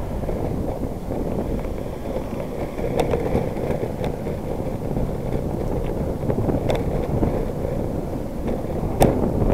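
Wind buffeting a bicycle-mounted camera's microphone while riding, a steady low rumble. A few sharp clicks cut through it, about three seconds in, near seven seconds and just before the end.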